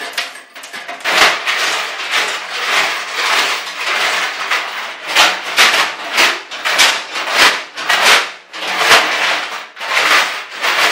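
Two steel chains rattling and clanking inside a steel car fuel tank as it is shaken by hand, in repeated surges about two a second from about a second in. The chains are scouring loose rust and debris from the tank's baffled interior.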